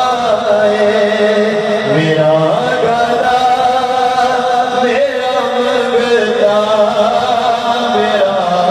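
Devotional naat singing: a voice chanting in long, wavering held notes without pause.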